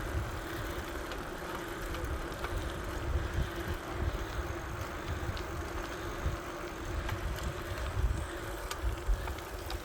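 Bicycle riding along with a steady tyre hum, wind buffeting the microphone in uneven low rumbles.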